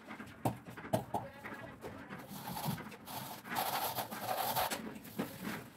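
Steel plastering trowel scraping and spreading wet cement render over a brick wall: an irregular rasping with a few sharp knocks in the first second or so, denser and louder in the second half.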